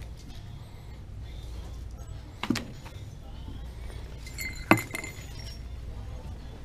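Two sharp clinks of hard objects striking, about two seconds apart, the second louder with a brief ring, over a steady low background hum.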